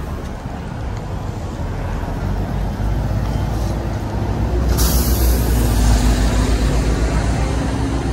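A bus approaching, its low rumble growing steadily louder, with a sudden hiss of released air brakes about five seconds in.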